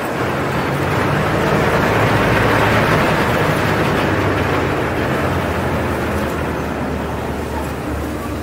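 Tour boat's engine running with a steady low hum under a broad rushing noise as the boat gets under way from the pier; the rush swells to its loudest a couple of seconds in and then eases.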